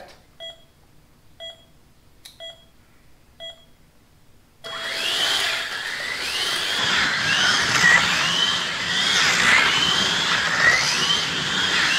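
Four short electronic start beeps about a second apart from the slot car race counter, then the whine of 1/43 scale rally slot cars' small electric motors as the race begins, rising and falling in pitch as the cars speed up and slow for the corners.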